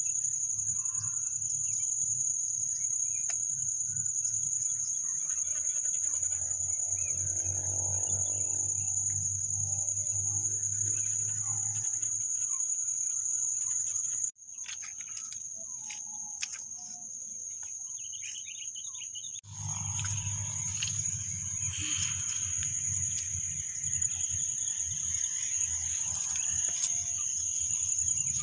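Rural morning ambience dominated by an insect trilling in one steady, high-pitched tone, over a low rumble. The sound drops in level for about five seconds around the middle, then returns.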